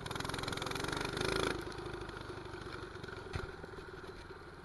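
Mini bike's 212 cc single-cylinder four-stroke engine with an aftermarket pipe, revving up under throttle, then dropping back to a quieter run when the throttle is let off about a second and a half in.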